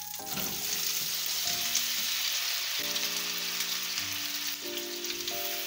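Diced apples sizzling in hot melted butter in a frying pan, the sizzle swelling just after they are tipped in, then running on steadily.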